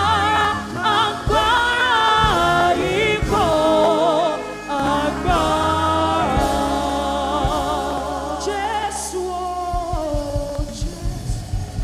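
Live gospel singing with band accompaniment: a lead voice holds long, wavering notes over steady bass and keyboard. Near the end the accompaniment turns to a choppier beat.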